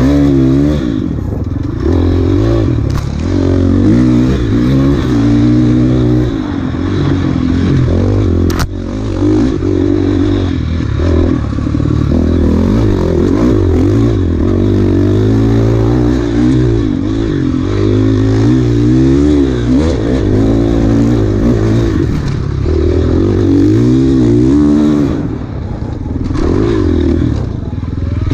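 Enduro dirt bike engine revving up and down constantly, its pitch rising and falling every second or two as the throttle is worked, with clattering over rough trail. A sharp click about eight and a half seconds in.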